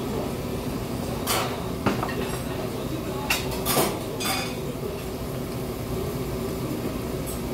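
Eating hot soup with a metal spoon: about five short slurps and spoon clinks in the first half, over a steady background hum.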